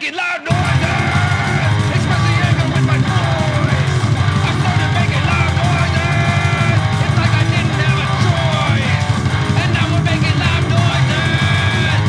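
Loud rock song with bass, guitar and shouted singing of the line 'I started making loud noises', kicking in hard about half a second in after a brief yelled line.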